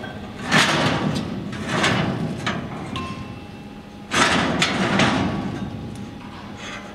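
A series of loud knocks and clatter with short ringing tails in a workshop, the two loudest about half a second and about four seconds in, with smaller knocks between and after.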